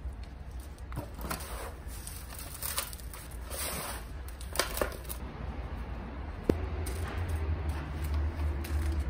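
Gloved hands scooping and pressing loose potting soil into a gardenia pot, with gritty rustling and crinkling of newspaper. A sharp click comes about six and a half seconds in, followed by a low steady rumble until the end.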